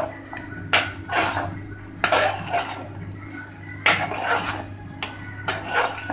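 Metal slotted ladle stirring thick sambar in an aluminium pressure-cooker pot, scraping and knocking against its sides in uneven strokes. A steady low hum runs underneath.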